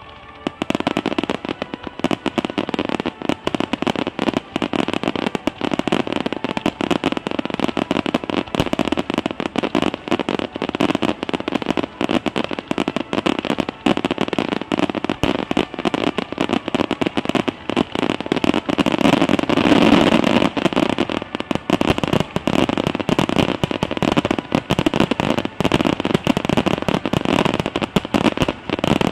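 Finale barrage of aerial fireworks: a dense, unbroken rapid crackle of bursts and bangs. It starts abruptly about half a second in and swells to its loudest about two-thirds of the way through.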